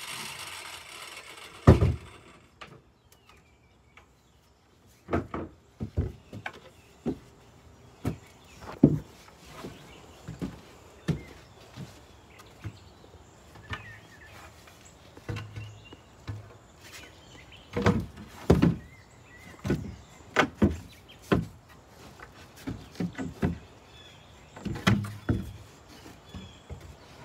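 A circular saw's noise fades out in the first two seconds, then irregular wooden knocks and thuds follow as pressure-treated pine boards are handled and set into place on a wooden step.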